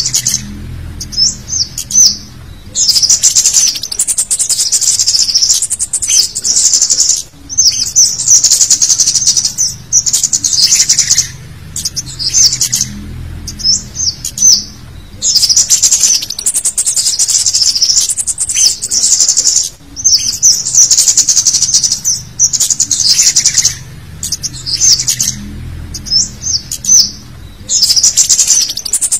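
Cit kemade bird lure recording: busy, high-pitched 'cit' chirps in quick dense runs with short gaps between them, the same sequence repeating as a loop. It is a male's calling, used to lure wild cit kemade.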